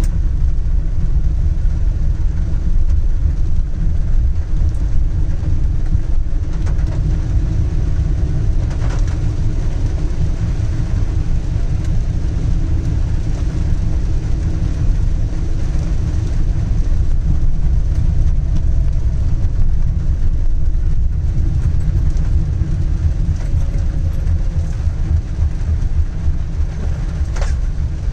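Steady low rumble of a car driving in rain, heard from inside the cabin, with rain and tyre noise over it. Two short clicks, one about a third of the way in and one near the end.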